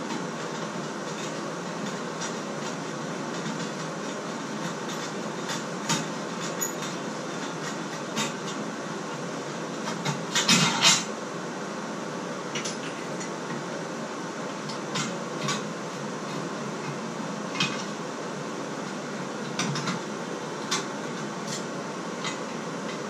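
Hand tools (screwdriver and pliers) clinking and scraping against the metal stem of a Delta shower valve: scattered single clicks, with a louder rapid clatter about ten seconds in. A steady hiss runs underneath.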